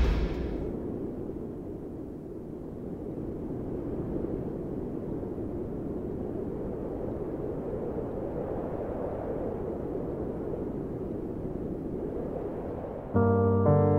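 Steady rushing wind, a low even hiss without any tone in it. A music cue dies away at the very start, and music with piano comes in suddenly near the end.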